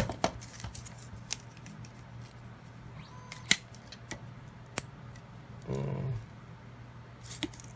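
Scattered sharp clicks and taps from handling a braided phone cable while it is measured, over a steady low hum.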